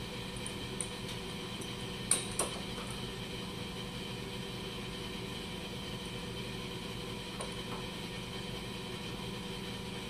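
Steady background hum, with two light clicks close together about two seconds in from hands handling a pipe-and-valve assembly and a rag at a bench vise.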